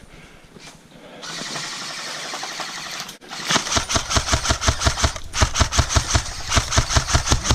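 An airsoft gun firing a long, rapid string of shots, several a second, starting about halfway through. It comes after a couple of seconds of steady rushing noise.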